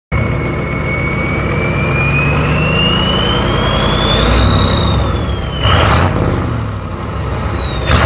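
Ford 7.3 IDI diesel's new Borg Warner S257 SX-E turbo whistling as the engine is revved, heard at the exhaust pipe. The whistle rises slowly in pitch for about four seconds and falls off, then rises and falls again, with a louder rush of engine noise about six seconds in.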